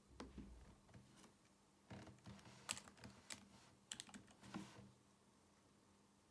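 Keys clicking as someone types on the keyboard of a white polycarbonate MacBook (mid-2010, A1342), in a few short irregular runs of keystrokes.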